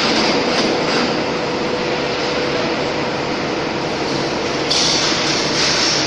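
Steady machinery noise on an aluminium foundry floor where a furnace-charging forklift is working. A faint steady hum runs through the first half, and a hiss comes up louder near the end.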